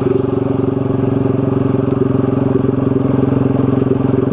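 Z200S motorcycle with an open Akrapovic Evo GP slip-on exhaust running at a steady engine speed while riding, its deep exhaust note pulsing fast and even.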